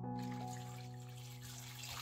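Water poured from a glass jug into a stainless steel pot of peeled potato pieces, a steady splashing hiss, under background music.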